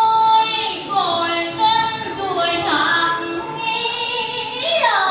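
A woman's voice singing in the Vietnamese Trò Kiều folk-theatre style, holding long notes that slide down in pitch between them.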